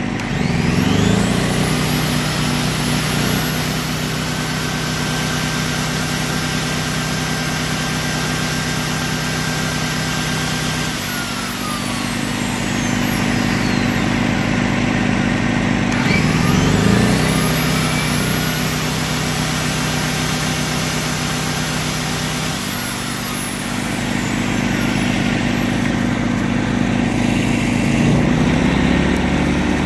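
Predator 2000 inverter generator's small single-cylinder four-stroke engine revving up and labouring as a heavy electric motor load starts on it, then dropping back in speed when the load cuts out. A whine from the motor load rises as it spins up and falls as it winds down. The cycle happens twice in about sixteen seconds and starts again near the end, with another generator running steadily underneath.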